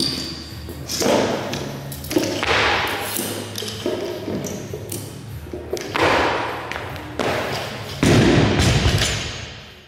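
Knocks and thuds of a barbell and rubber bumper plates on a rubber gym floor. A string of sharp knocks runs through the first seven seconds, and a loaded barbell lands with a heavy thud about eight seconds in, the loudest sound, fading over the next second or so.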